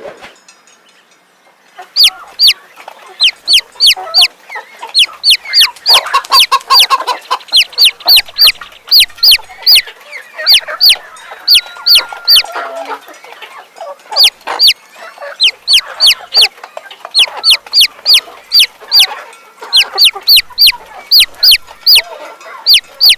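Baby chicks peeping: a long run of short, high, falling cheeps, about three a second, starting about two seconds in with a few brief pauses, over softer lower clucking.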